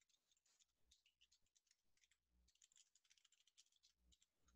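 Near silence, with faint, scattered clicks of computer keyboard keys as an equation is typed.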